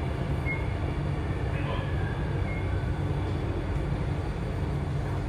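Inside a C830C Alstom Metropolis metro car pulling into a station: a steady low rumble of the wheels and running gear, with a couple of brief faint high squeaks.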